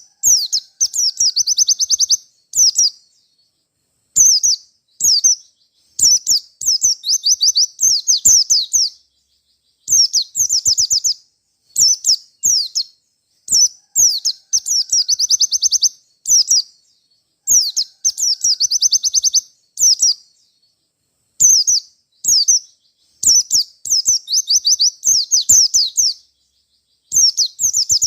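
White-eye (pleci) singing loudly: high, rapid chirping phrases about one to two seconds long, many ending in a fast trill, repeated with short silent gaps between them.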